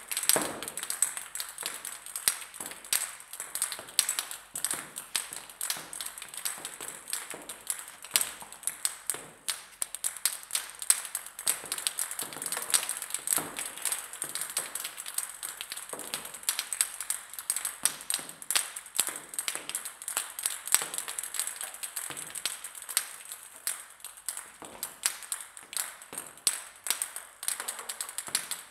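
Many table tennis balls dropping and bouncing on a hard floor: an irregular run of light clicks, several every second, over a steady high hiss.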